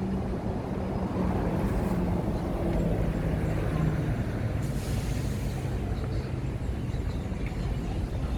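Road traffic: a heavy vehicle's engine running with a steady low rumble and shifting pitch, and a short hiss of air about five seconds in, like a bus or truck's air brakes.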